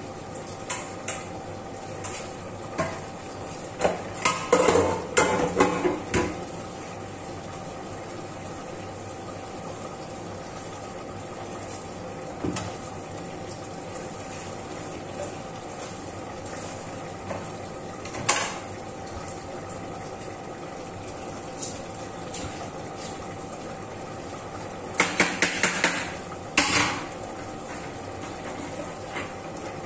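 Pots, pans and utensils clinking and clattering in the kitchen over a steady background hum. There is a cluster of clatters a few seconds in, a single one midway, and a quick run of knocks near the end.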